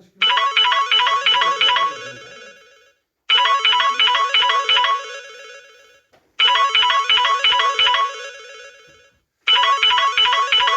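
Samsung Galaxy A21s ringtone playing: a short melodic phrase of quick notes that repeats about every three seconds, starting four times.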